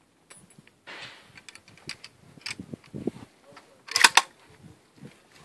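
Metallic clicks and clacks of a bolt-action rifle, a sporterized 1903-A3 Springfield, as its bolt is worked to load a round. A quick run of three sharp clacks about four seconds in is the loudest.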